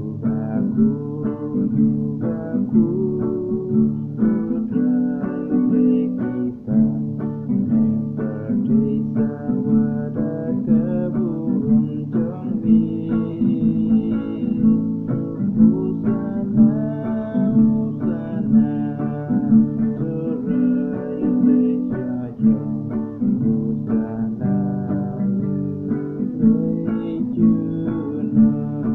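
Acoustic guitar strummed in a steady rhythm, chords changing as the hymn accompaniment goes on without a pause.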